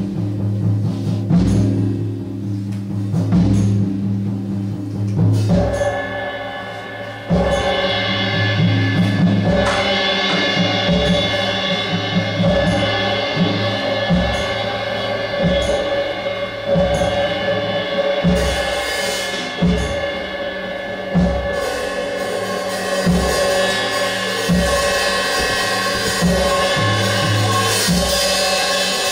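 Live experimental percussion: repeated low drum strikes, joined about six seconds in by a sustained drone of many steady tones that grows fuller about seven seconds in and carries on under the drumming.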